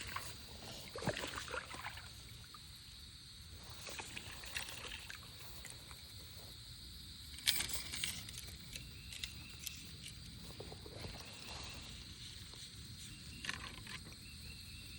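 Steady high-pitched insect buzz over the low wash of creek water, with a few brief sharp splashes and rustles about a second in, midway and near the end as a hooked fish is played in.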